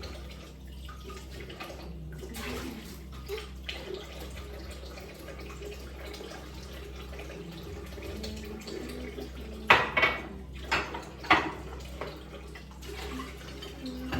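Water running in a kitchen sink during dish washing, with dishes knocking together: four sharp clatters in quick succession about two-thirds of the way through.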